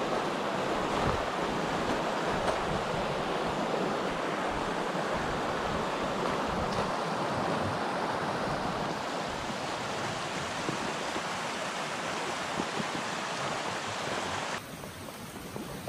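Small forest stream rushing over rocks: a steady hiss of running water, with a few faint knocks from handling a backpack. Near the end the sound drops suddenly to a quieter, thinner rush of water.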